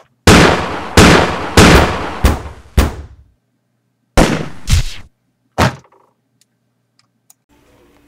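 A run of very loud, sharp bangs, each dying away with a short echo: five in quick succession over the first three seconds, then three more after a brief pause.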